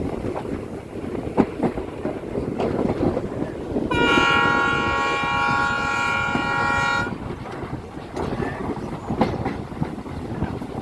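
Passenger train rolling on the track, wheels rumbling with scattered clicks over the rail joints. A locomotive horn sounds once, a multi-note chord held for about three seconds near the middle.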